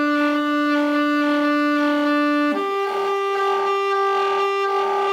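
Saxophone holding a plain, steady note, then about two and a half seconds in stepping up to a higher held note played flutter-tongued (frullato), with a rolled-r flutter in the tone.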